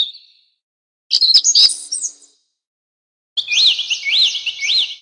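Sound effects on an animated subscribe-button intro. A short click comes at the start as the cursor presses Subscribe. A cluster of chirps follows about a second in. Near the end come three whistled chirps, each rising and falling, evenly spaced.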